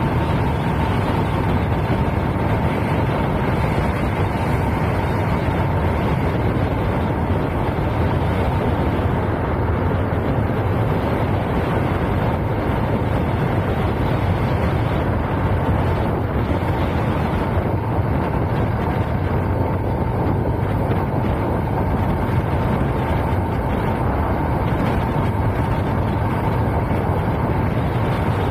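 Motorcycle running at a steady cruising speed, its engine drone mixed with steady wind rushing over the microphone.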